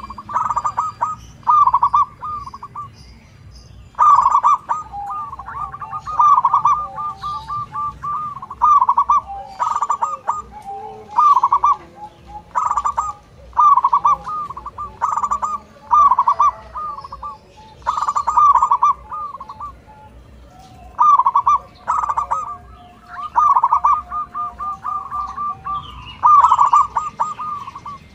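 Zebra dove (perkutut) cooing its song: a phrase about every one and a half to two seconds, each a loud opening note followed by a quick run of soft rhythmic notes.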